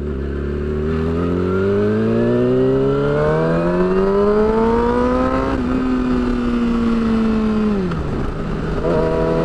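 Yamaha R6 sport bike's inline-four engine through an aftermarket shorty slip-on exhaust. It pulls up steadily in revs for about five and a half seconds, holds and eases off, then drops back sharply about eight seconds in and settles on a steady lower note.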